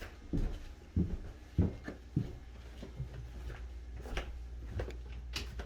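Footsteps going down basement stairs, a low thud about every two-thirds of a second for the first couple of seconds. Then a steady low hum with a few light knocks.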